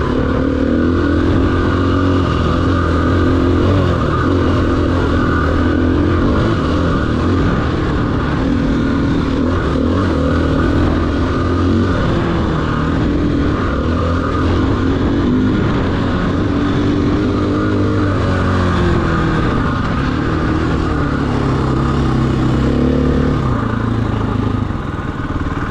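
KTM 500 EXC's single-cylinder four-stroke engine running while riding, its revs rising and falling with the throttle and easing off slightly near the end.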